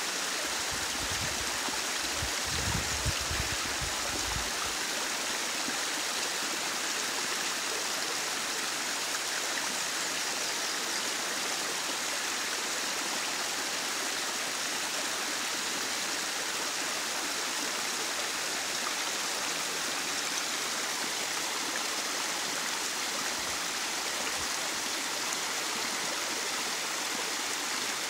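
Small waterfall, a thin ribbon of water falling down a rock gully into a rocky burn: a steady, even hiss of falling and running water.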